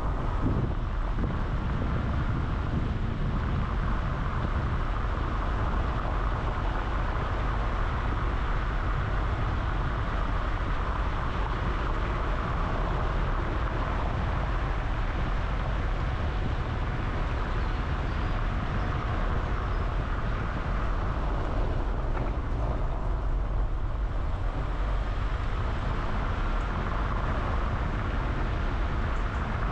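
A car driving: steady engine and road-tyre noise, a constant low rumble with hiss, with no change in pace.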